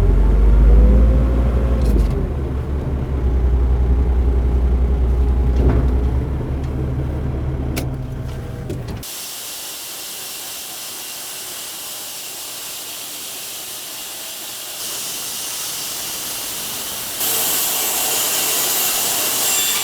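Custom-built wide bandsaw sawmill running: a low, steady motor hum for about the first half. It then switches abruptly to a steady high hiss that grows louder in two steps.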